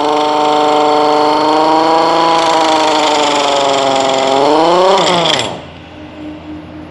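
Pneumatic air gun spinning a car alternator by its pulley: a loud, steady mechanical whine. About four and a half seconds in, the pitch rises and then falls, and the whine stops suddenly about a second later.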